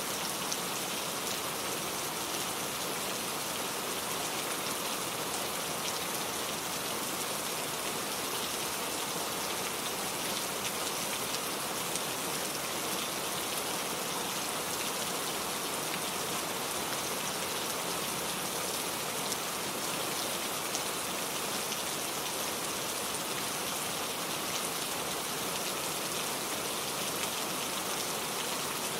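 Heavy rain falling steadily, a dense, even hiss of drops with no let-up and no thunder.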